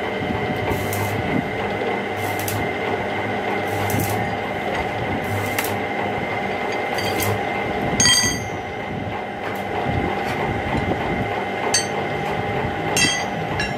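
Metal lathe running with a steady hum and whine, and a soft swish that repeats about every second and a half. There are sharp ringing metal clinks about eight seconds in and twice more near the end.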